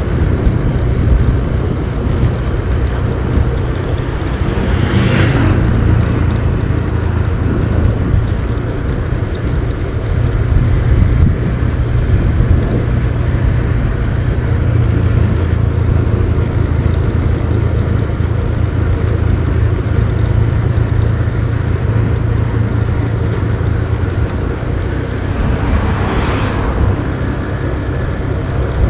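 Motorbike engine running steadily under a low rumble of wind and road noise on a helmet or bike-mounted microphone. A brief whoosh rises and fades about five seconds in and again near the end.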